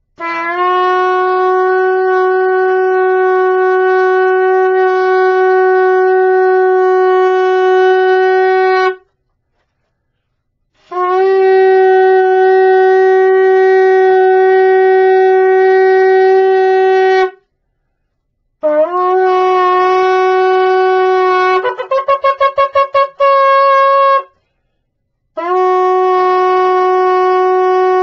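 A shofar blown in four long blasts, each held for several seconds on one steady note with a slight lift as it starts. The third blast breaks partway through into a quick run of short staccato notes and ends on a higher note.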